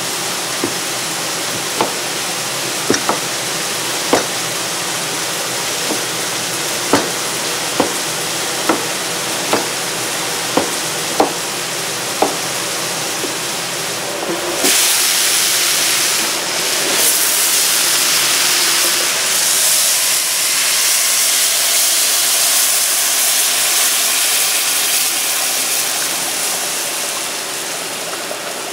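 A chef's knife chopping blocks of curry roux on a cutting board, sharp knocks about once a second, over the steady sizzle of food frying in a pan. About halfway through the chopping stops and a louder steady rushing hiss takes over.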